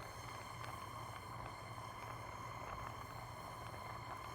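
Acetylene jeweller's torch burning with a steady hiss while it heats a gold bezel seam to make the solder flow.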